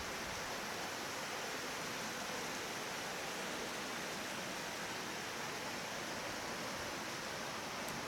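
Steady, even rushing of a waterfall and its stream, the roughly 10 m Kotohiki Falls, with no change in level.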